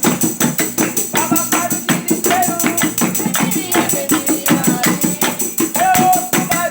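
Amateur group singing a Brazilian gospel praise song (louvor) over hand-played percussion with a tambourine, keeping a quick, steady beat.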